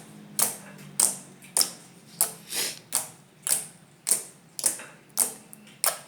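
Slime squeezed and pressed in the hands, giving sharp clicking pops in a steady rhythm of just under two a second.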